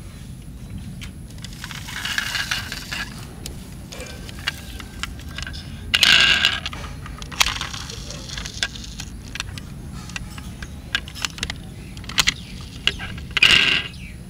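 Clicks, rattles and scraping of toy fire trucks being handled and turned in the hands, with a few short, louder scraping bursts.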